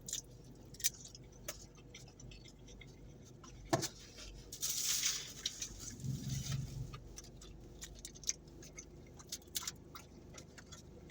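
Close-up eating sounds: chewing with scattered small clicks and taps of a utensil against a takeout container, a brief rustling hiss about five seconds in, and a short low hum just after.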